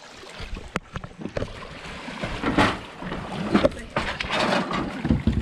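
Pool water splashing and sloshing in irregular surges as a springer spaniel and a person swim.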